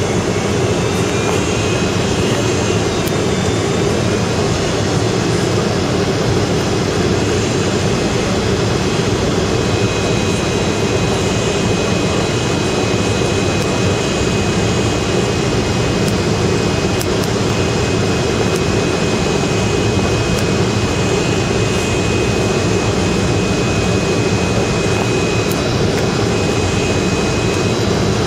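Steady cabin noise inside a Boeing 767-300ER twin-jet airliner on approach: jet engine and airflow noise. A faint, steady, high-pitched whine holds from about a third of the way in.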